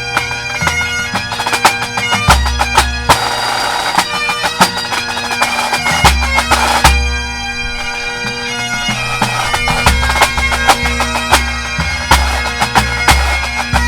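Full Highland pipe band playing: bagpipes carry a tune over steady drones, with crisp snare drum strokes and regular bass drum beats underneath.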